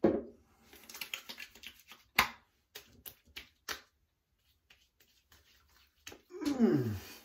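Wet hands slapping and patting aftershave splash onto a freshly shaved face and neck: a string of sharp, irregular pats and claps. Near the end comes a pained groan falling in pitch as the splash burns the skin.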